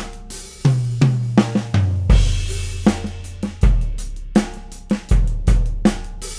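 Drum kit playing a groove: kick drum, snare strokes, hi-hat and cymbals, with deep drum hits that ring on low and a cymbal wash about two seconds in.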